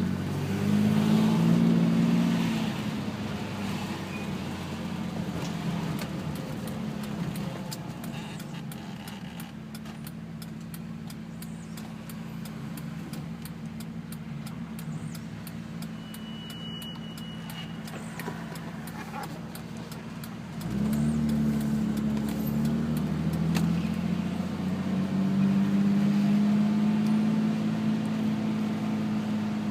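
Mercedes-Benz 280 SLC's 2.8-litre twin-cam straight-six running while the car is driven. It pulls up in pitch briefly, settles into a quieter, steady stretch, then about two-thirds through opens up suddenly, louder and rising in pitch as the car accelerates.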